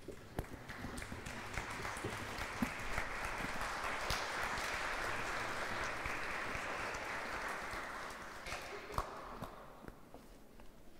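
Audience applauding: the clapping builds over the first couple of seconds, holds steady, then dies away about nine to ten seconds in, with a few louder single claps standing out.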